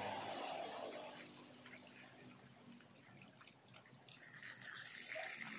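A thin stream of water pouring and splashing onto plastic drill housing parts lying in a shallow plastic tray of water. The splashing is louder at first, eases off in the middle and picks up again about four seconds in.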